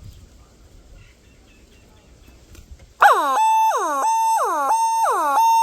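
Repaired siren-type car hooter starting up about three seconds in when connected to power, a repeating tone that drops in pitch and then holds, about two cycles a second. Its sound is a little off, which the repairer thinks may be a wire touching inside near the magnet.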